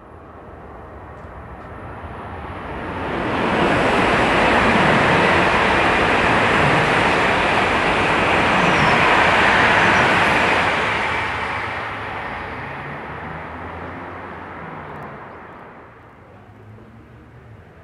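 E5 series Shinkansen passing at high speed: a rushing noise of wheels and air that builds over the first few seconds, holds loud for about seven seconds while the cars go by, then fades away.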